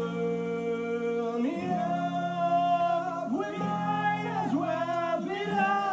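Music with a singing voice, holding long notes that slide between pitches over a steady low accompaniment.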